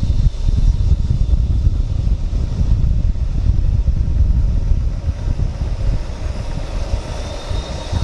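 Motorcycle on the move: heavy fluttering wind rumble on the microphone, with the sound of the bike running down the road underneath.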